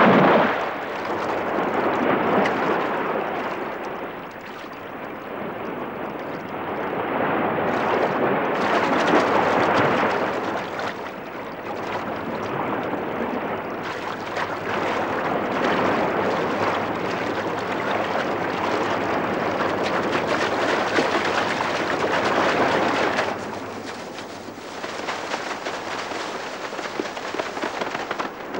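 Rough water rushing and breaking: a churning surf noise that swells and falls every few seconds, easing off near the end.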